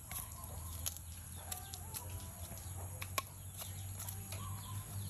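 Chickens clucking faintly, with scattered light clicks over a steady low hum.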